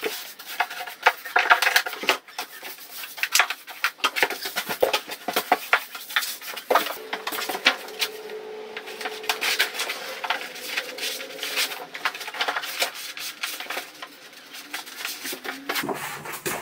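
Thick pasted wallpaper crackling and rustling as a length is lifted, unfolded and put up against a wall, with many short crackles and clicks.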